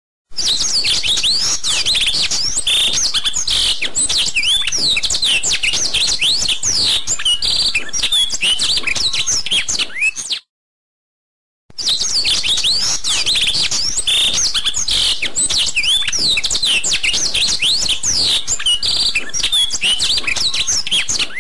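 A dense chorus of many small birds chirping and twittering, with quick overlapping high calls. It cuts off suddenly about ten seconds in, and after a second of silence the same birdsong starts again.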